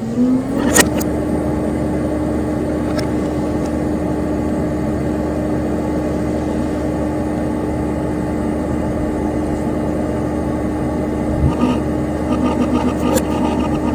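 Dell Dimension XPS P100c desktop computer's cooling fan and hard drive spinning up: a hum rises in pitch in the first second, then holds a steady tone under a steady whir. There is a sharp click about a second in and a few faint ticks near the end.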